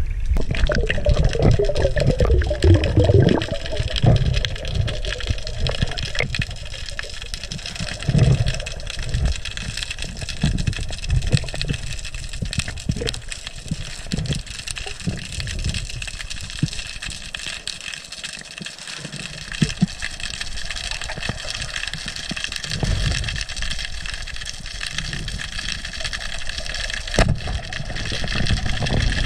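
Underwater sound of a freediver going down: splashing in the first few seconds as he goes under, then muffled water movement and low thumps. A steady whine of several high tones runs under it all.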